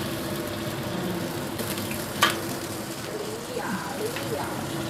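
Spice paste with ginger and lime leaves sizzling and bubbling in a hot wok as freshly added water boils up around a metal spatula, over a faint steady hum. One sharp knock about two seconds in.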